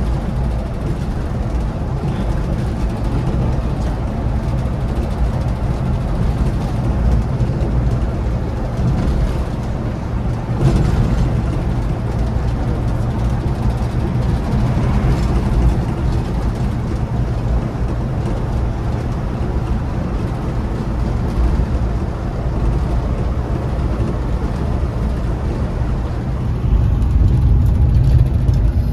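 Scania luxury coach on the move: a steady low rumble of engine and road noise.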